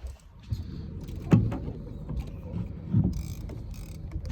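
Heavy fishing reel being cranked in on a bluefin tuna, its gears working, over a steady low rumble. Two sharp knocks, one about a second in and a louder one about three seconds in.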